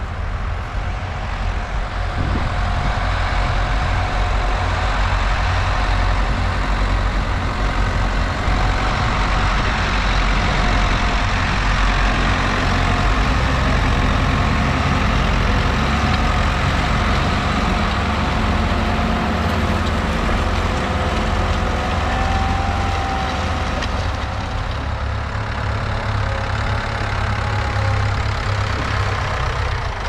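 Doe Triple D tractor's twin diesel engines running steadily under load while pulling a reversible plough, a deep rumble with a faint steady whine above it.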